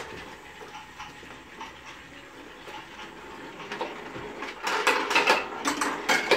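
Plastic toy train set: low mechanical clicking and whirring, then a louder run of sharp plastic clicks and rattles starting about four and a half seconds in.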